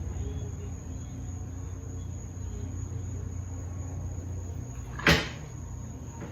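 A single sharp clack of a hard object, about five seconds in, over a steady low hum.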